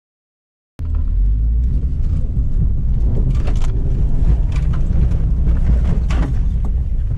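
Aprilia Dorsoduro 900 V-twin engine with a Roads Italia aftermarket exhaust, running at low speed over a rough stony trail. It cuts in abruptly about a second in and keeps up a loud, steady low rumble. A few sharp knocks, like stones striking the bike, sound over it.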